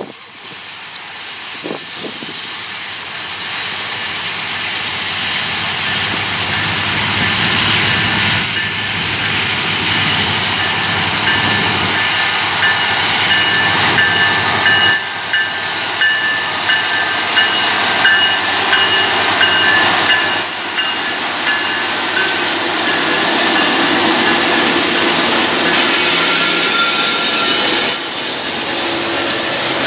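Union Pacific diesel freight train approaching and passing close: the locomotives run by, louder over the first several seconds, with a steady high whine midway through, then tank cars and covered hoppers roll past on the rails.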